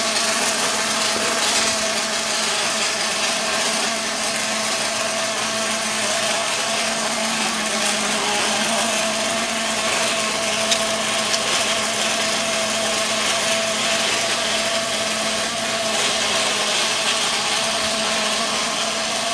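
OTC industrial robot welding a steel beam in pulse mode: a steady buzzing arc with a constant hum under the hiss, the "buzzing bee sound" of pulse welding.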